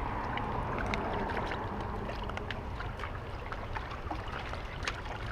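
Small waves lapping and splashing against shoreline rocks: a steady watery rush with scattered small clicks and splashes.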